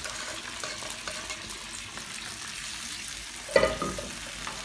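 Chicken broth sizzling in a hot wok over sautéed garlic, stirred and scraped with a spatula, with one sharp knock about three and a half seconds in.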